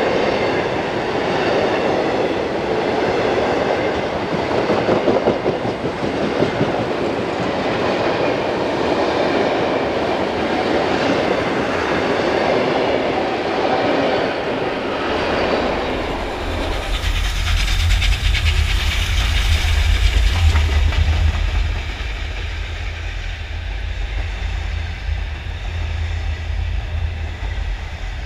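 Passenger carriages rolling past close by, their wheels clattering over the rail joints. A little over halfway through, the sound changes to a deep rumble with a few seconds of hiss, which fits the train drawing away.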